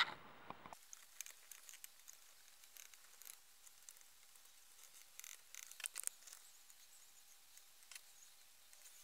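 Faint, irregular scraping and clicking of a small metal spatula working two-component epoxy putty into holes in a wooden crib board, with a few sharper clicks about five to six seconds in.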